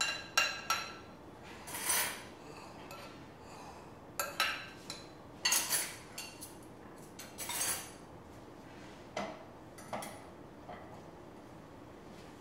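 Metal forks and spoons clinking and scraping against ceramic plates and bowls while food is served: a dozen or so irregular, separate clinks.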